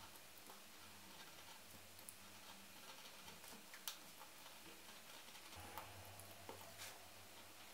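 Faint ticks and scratches of a utility knife blade drawn through 1.6–1.8 mm leather, with a sharper click about four seconds in.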